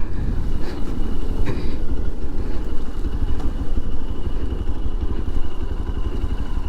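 Hero XPulse motorcycle's single-cylinder engine running steadily as the bike is ridden, a dense low engine rumble.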